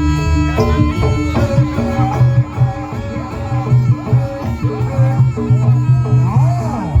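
Jaranan (kuda lumping) gamelan accompaniment playing: quick hand-drum strokes, some bending in pitch, over steady ringing metal tones.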